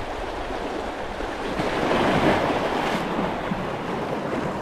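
Sea waves washing in, one surge building to a peak about halfway through and easing off, with some wind on the microphone.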